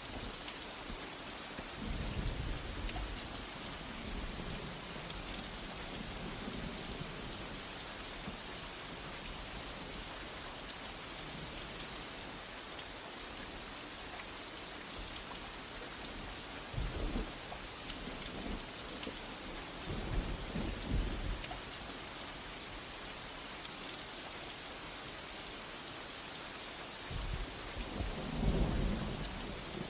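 Steady rain hissing, with thunder rumbling four times; the longest and loudest roll comes near the end.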